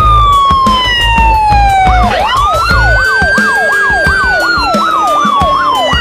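Emergency-vehicle siren sound effect. First comes a slow wail falling in pitch. About two seconds in, a fast yelp swinging up and down about twice a second joins a second slow wail that rises and then falls. A throbbing low beat sits underneath for the first few seconds.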